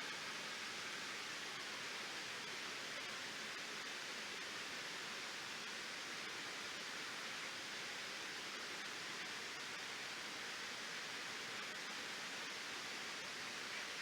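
Steady rush of water pouring over a reservoir waterfall, an even hiss with no breaks.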